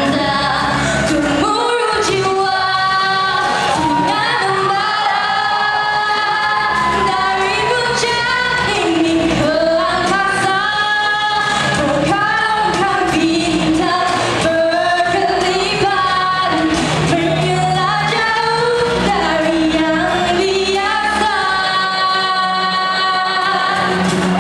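A young woman singing a Malay pop song solo into a handheld microphone over backing music, with long held notes that bend in pitch.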